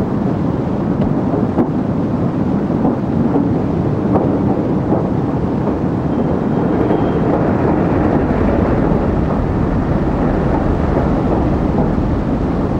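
Steam locomotive hauling a train, a loud, steady, dense rumble of exhaust and running gear.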